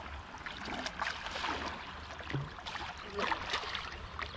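Water splashing and swirling as a hooked wels catfish thrashes at the surface beside the boat: a run of irregular small splashes over a steady wash of water.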